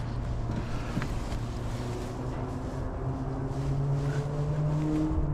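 A motor or engine running with a steady low hum, its pitch rising a little about halfway through.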